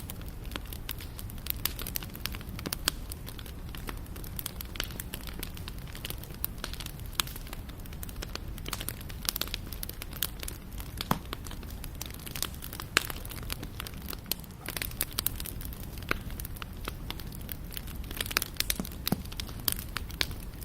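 Campfire crackling: irregular sharp pops and snaps of burning wood over a low steady rumble of the flames.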